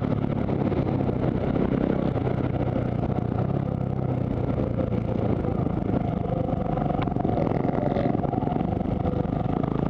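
On-board sound of a supermoto racing motorcycle's engine running at a fairly steady pace on track.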